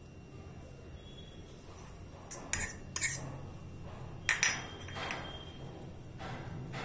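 Metal cutlery clinking as a knife and fork crumble paneer and tap against a bowl and plate: a handful of sharp clinks, in two clusters about two and four seconds in.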